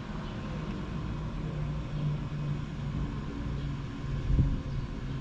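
A car engine running steadily, with a single low thump about four seconds in.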